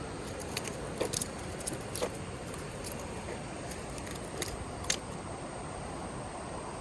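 Steady outdoor background hiss with a handful of light, sharp clicks and clinks scattered through, the loudest near the end.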